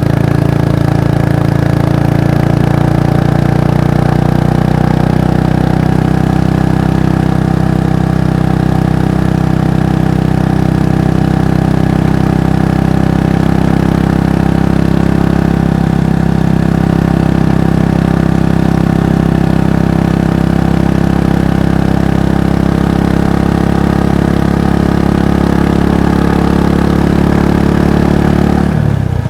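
Kawasaki Estrella's single-cylinder exhaust running at a steady, unchanging engine speed. The note changes abruptly just before the end.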